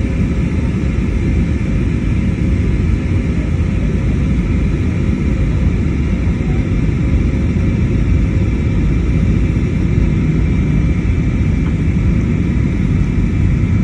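Jet airliner cabin noise while descending to land: a steady low rumble of engines and rushing air, with faint steady tones humming above it.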